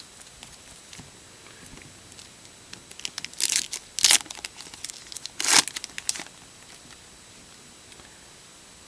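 Wrapper of a trading-card pack torn open and crinkled by hand, in a few sharp rustling bursts from about three to six seconds in.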